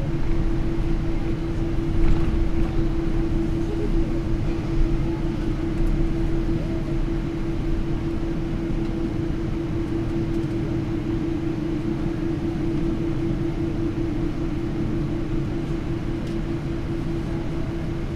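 Steady cabin noise inside a Boeing 777-300 in flight: a constant low rumble of engines and airflow with a steady hum tone over it.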